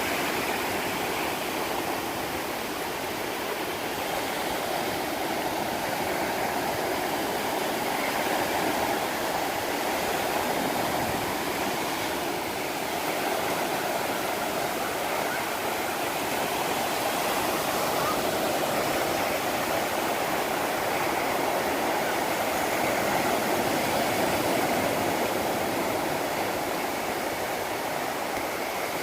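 Ocean surf washing steadily on the beach, a continuous even rush of water with no single splash standing out.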